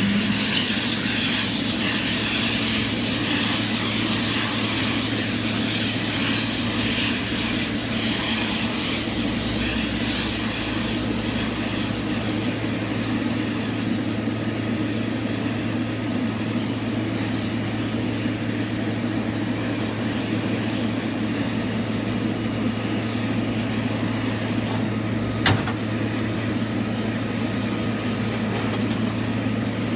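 Boeing 777-300ER jet engines running steadily, with a steady low hum under a high whine that fades away after about ten seconds. A single sharp click sounds near the end.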